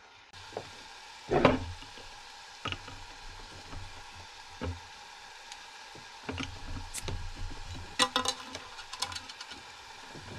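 Chicken sizzling in a frying pan on a small galley stove, with a spatula stirring it and knocking against the pan. A sharp knock about a second and a half in, and a run of small clicks and taps in the second half.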